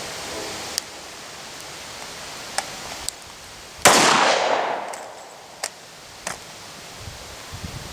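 A single pistol shot from a Glock 27 in .40 S&W about four seconds in, its report trailing off over about a second. A few short, faint clicks come before and after it.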